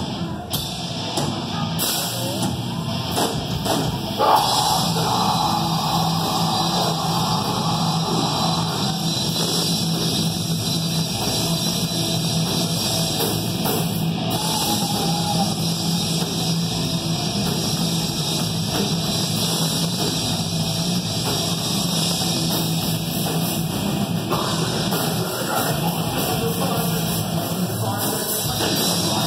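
Live heavy metal band playing: distorted electric guitars, bass and a pounding drum kit with vocals, heard from the audience. The band gets louder about four seconds in and stays loud.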